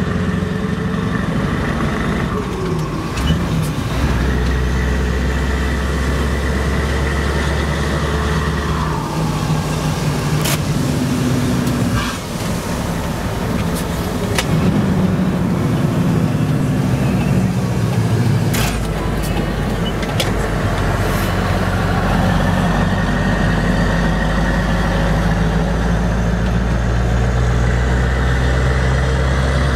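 Scania 164L's 16-litre V8 with open exhaust pipes, heard from inside the cab while driving: the engine pulls with a deep rumble, its pitch rising and dropping as the truck works through the gears. A few sharp clicks come in the middle.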